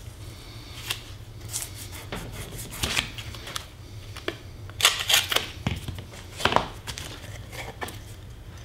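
Blue painter's tape being pulled from the roll, pressed onto a wood blank and trimmed with a hobby knife: scattered short rustles and crackles, a few louder ones near the middle.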